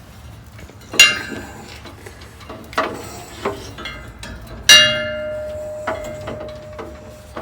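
Sharp metal clanks and knocks from handling the disconnected high-pressure fill hose and its metal fittings. Two loud clanks, about a second in and just under five seconds in, with the second left ringing for a couple of seconds. Lighter knocks fall between them.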